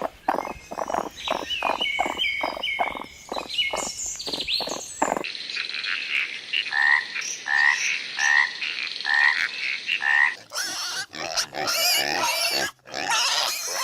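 Animal calls in three short sections, one after another: fast pulsed calls with short rising notes, then a call repeated about every 0.8 s, then a different, rougher calling near the end.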